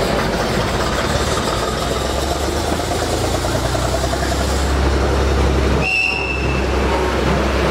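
A Mercedes-Benz truck's diesel engine runs as it drives slowly past, its low rumble growing louder from about three seconds in. A brief high-pitched tone sounds about six seconds in.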